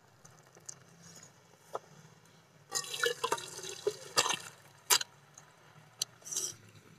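Boiled bottle-gourd greens and their cooking water tipped from an aluminium pan into a perforated aluminium colander: water splashing and draining from about three seconds in. A few sharp knocks on the metal come through the splashing.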